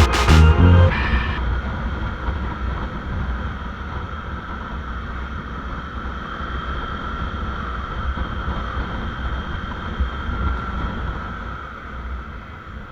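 Motorcycle engine running steadily on the move, with wind rushing over the microphone. A music track's beat cuts off about a second in.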